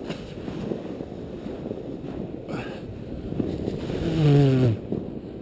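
A sled hissing and scraping over packed snow as it slides down a trail, with wind on the microphone. About four seconds in, a voice calls out once, falling in pitch, for most of a second.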